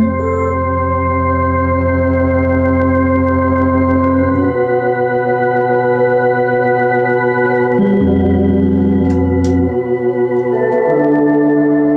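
Organ music: slow sustained chords, each held for a few seconds before moving to the next, with the sound wavering in loudness in places.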